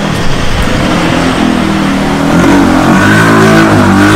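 A motor vehicle's engine accelerating close by, its pitch rising over a couple of seconds and then holding steady and loudest near the end.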